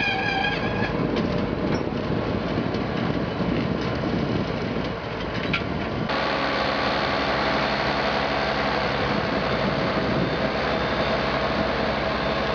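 Large farm tractor's diesel engine running steadily under load as it pulls a tile plow through the soil. Rough and noisy at first; from about halfway it becomes a steady, even engine drone.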